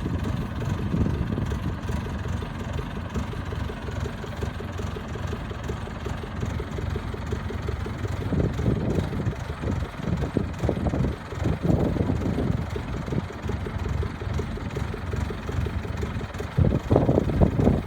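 Diesel engine of heavy farm machinery, a rice harvester or tractor working in deep paddy mud, running steadily, with louder surges about halfway through and again near the end.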